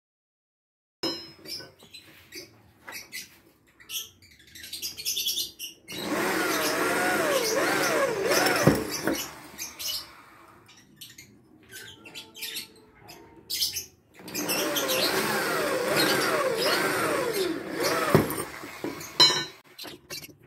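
Bosch power drill boring holes through a thin metal channel in two bursts of about four seconds each, the bit squealing in the metal with a pitch that rises and falls. Clicks and knocks of handling come between and after the bursts.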